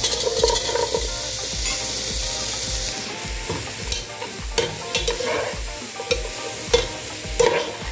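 Leeks sizzling in hot olive oil in a soup pot as diced sweet potatoes tumble in, then a metal slotted spoon scraping and stirring the pot about six times over the steady sizzle.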